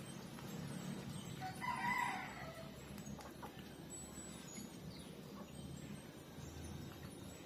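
A single animal call about a second and a half in, lasting about a second and dropping in pitch at the end, over a steady low background noise.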